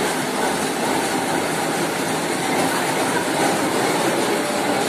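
A 64 cm three-colour reel-to-reel flexographic printing machine running steadily, its rollers feeding printed plastic film from reel to reel.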